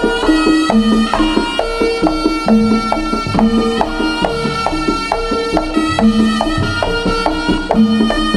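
Live Javanese jaranan band music: a reedy wind melody over hand drums, gongs and a drum kit in a steady beat.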